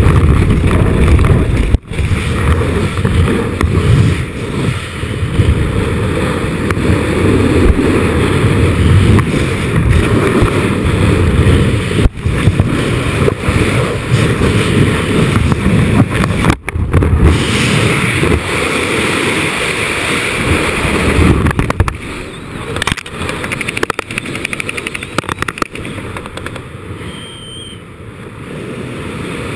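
Wind buffeting the camera's microphone as the parachute canopy opens and flies, a loud low rumble that eases off about three-quarters of the way through.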